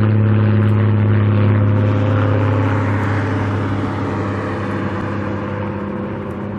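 A motor vehicle's engine humming steadily at a constant pitch, loudest about a second in and then slowly fading.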